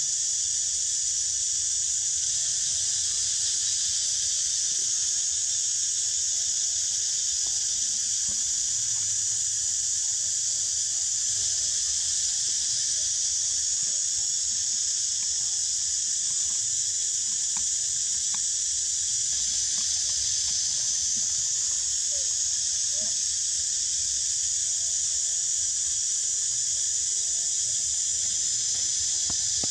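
Steady, high-pitched hiss of an insect chorus, unbroken throughout.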